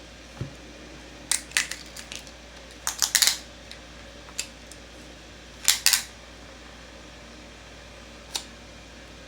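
Sharp clicks and clacks from a folding knife being handled, in four small clusters: a couple of clicks about a second and a half in, a quick run around three seconds, a pair near six seconds and a single click near the end.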